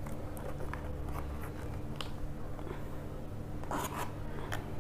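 Small cardboard retail box of a wireless mouse being opened by hand: faint rubbing and scraping of cardboard with scattered small taps, and a louder scrape near the end.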